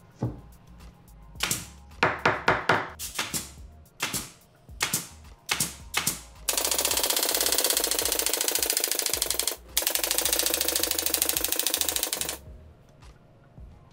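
Pneumatic brad nailer driving nails into plywood: a run of sharp single shots, then two long strings of rapid, evenly spaced shots, with a short break between them.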